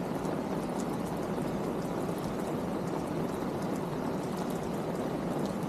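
Steady rain falling, a dense even wash of water noise with faint scattered drop ticks.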